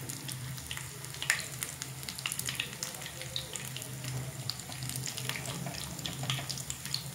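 Noodle-coated potato pakoras shallow-frying in oil on low heat: a steady sizzle with scattered small pops and crackles, over a low steady hum.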